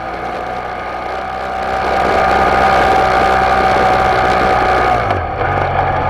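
Motorcycle engine running steadily under way, with wind and road hiss that grows louder after a second or two. Near the end the engine pitch dips briefly, then steadies.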